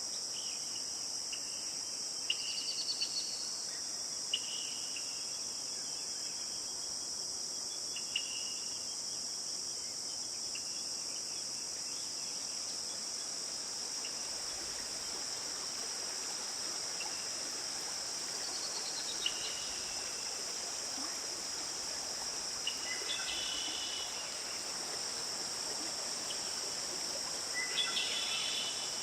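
Steady high-pitched chorus of insects, with short bird calls now and then, a brief cluster of them near the end.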